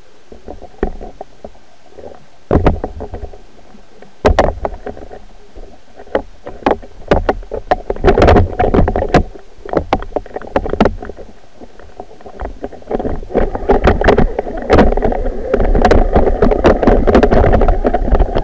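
Underwater camera rig on a fishing line knocking and rattling as it lifts off the seabed and is reeled up. About two-thirds of the way through, a loud steady rush of water over the housing sets in, still peppered with knocks.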